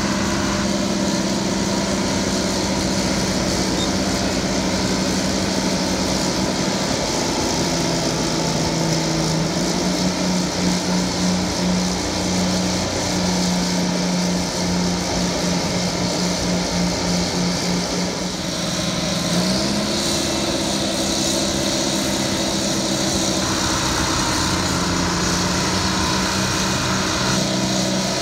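Euclid TC-12 crawler dozer's twin Detroit Diesel 6-71 two-stroke engines running hard as it pushes dirt. Their pitch drops about a quarter of the way in and comes back up about two-thirds of the way through.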